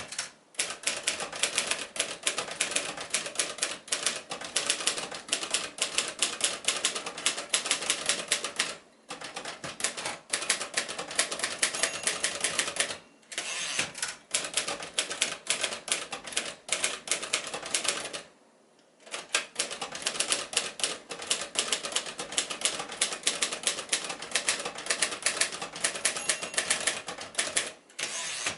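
A 1951 Royal Arrow manual portable typewriter being typed on at a brisk, steady pace: a rapid run of sharp keystroke clacks, broken by a few short pauses.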